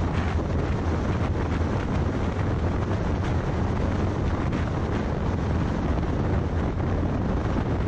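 Steady low rumble of wind on the microphone mixed with tyre and road noise from a moving car.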